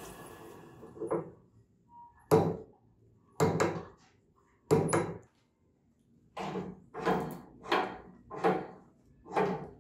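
A wood lathe, with a pineapple mounted between its centres, runs down and goes quiet in the first second. It is followed by a string of about nine short scrapes and knocks, each under half a second, as the pineapple and the lathe are handled.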